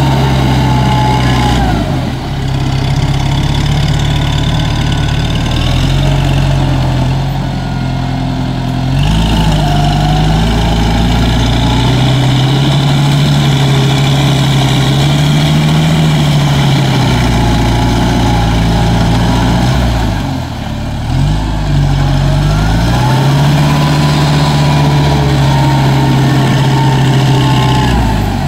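Kubota tractor's diesel engine running hard under load, its pitch sagging and picking up again several times as it drives a rotary tiller through deep, waterlogged mud.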